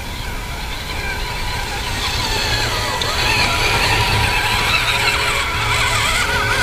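Electric motor and gear whine of a radio-controlled scale crawler truck driving toward the camera, its pitch wavering up and down with the throttle and getting louder as it nears.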